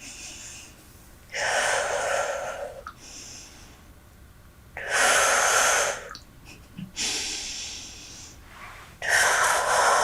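Three long breaths close to the microphone, each lasting about a second and a half and spaced three to four seconds apart.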